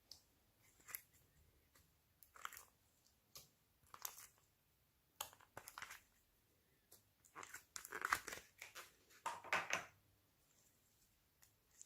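Slime being squished and stretched by hand, giving short crackly, squelchy pops and crackles at irregular intervals, with a louder run of them about three quarters of the way through.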